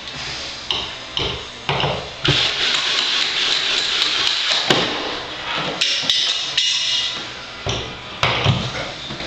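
Cordless drill/driver backing screws out of a medicine cabinet's mounting frame. It runs in a string of bursts, short ones at first, then longer runs with brief pauses between them.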